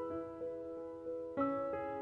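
Slow background piano music, with held notes and a few new notes struck during it.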